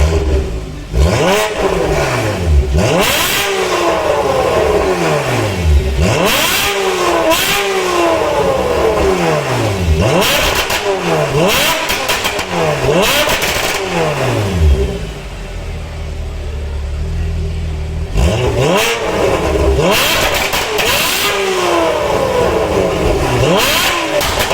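Porsche 991.1 Carrera flat-six through a decat full exhaust system, revved repeatedly in quick blips that rise and fall back, with sharp cracks among the revs. It settles briefly at idle near the middle before the revving resumes.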